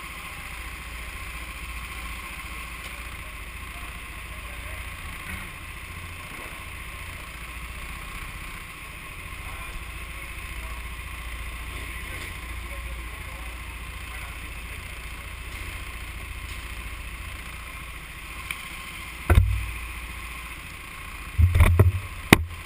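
Steady low hum and rumble of an indoor kart hall while the kart sits in the pit lane, with a loud knock about three-quarters of the way in and a quick cluster of loud knocks near the end.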